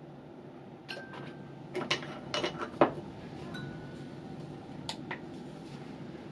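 Glass stirring rod clinking against a glass beaker a handful of times while stirring, the loudest clink about three seconds in, two of them leaving a short glassy ring. About five seconds in come two light clicks, a button pressed on a handheld digital conductivity meter.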